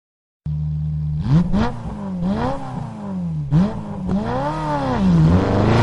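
Motorcycle engine idling steadily, then revved up and down repeatedly, the pitch rising and falling about once a second.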